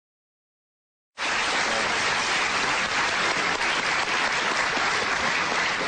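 Studio audience applauding, a dense steady clapping that starts abruptly about a second in.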